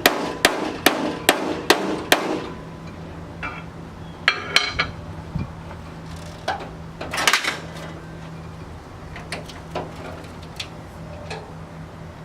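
Hammer striking sheet metal while shaping a car body panel: six quick blows at about two a second, then two short clusters of knocks and a few lighter taps.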